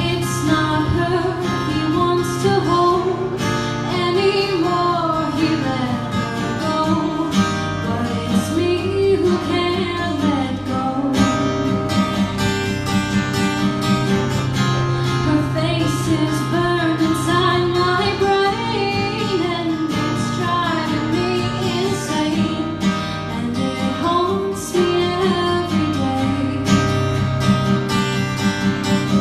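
A woman singing a song while strumming an acoustic guitar, played live through a microphone.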